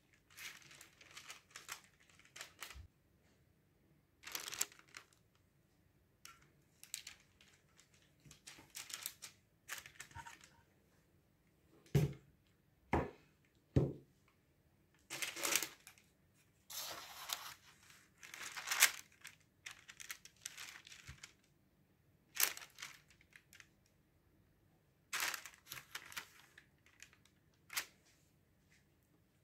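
Parchment (baking) paper rustling and crinkling in repeated bursts as it is handled and spread out. Three dull knocks come close together about midway.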